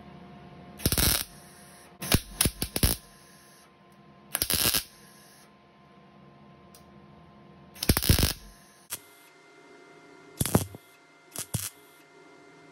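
Wire-feed (MIG) welder tack-welding a sheet-metal patch panel: a series of short, irregularly spaced bursts of arc noise, each well under a second, the tack welds that hold the patch before it is fully welded in.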